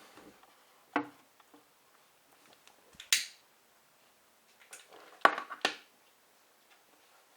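Handling noises: a sharp click about a second in, a short hissy scrape about three seconds in, and two more sharp clicks a little after five seconds.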